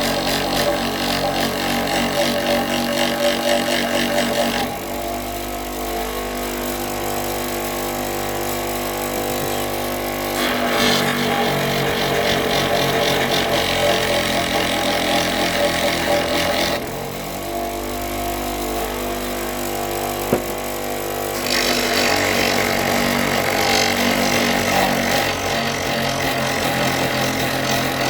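A power tool grinding a wooden walking stick: three passes of harsh grinding against the wood, with the motor running free and humming steadily between them.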